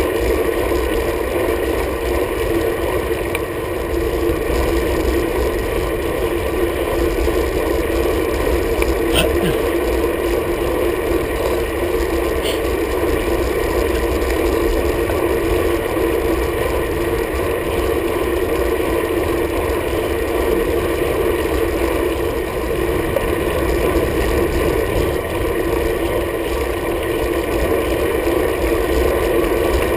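Steady wind rush and road vibration picked up by a camera mounted on a moving road bike's handlebars, with a couple of faint clicks.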